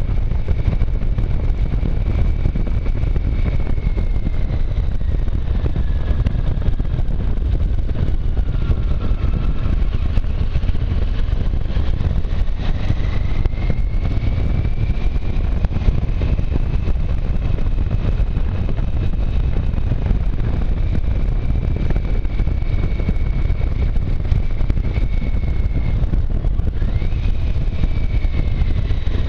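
A motorcycle on the move: steady wind rush and engine noise, with a faint high whine that falls and rises in pitch as the engine slows and picks up.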